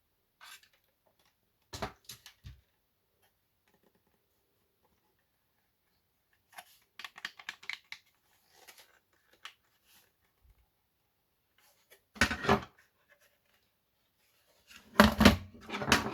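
Handling noise from opened tape dictation machines: scattered clicks, knocks and scraping. There is a short cluster of clicks about two seconds in, a run of scratchy rattling in the middle, a sharp knock about three quarters of the way through, and the loudest knocks near the end.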